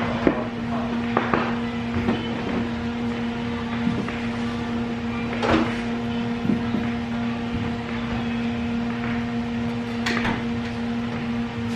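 A steady electric hum at a constant pitch, with a few light knocks and clicks from handling, the clearest about halfway through and near the end.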